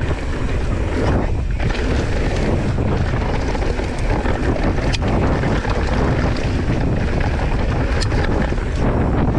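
Wind rushing over the camera microphone of a mountain bike at speed downhill, with the tyres rolling over a dirt trail. A few sharp knocks of the bike over bumps, the clearest about five and eight seconds in.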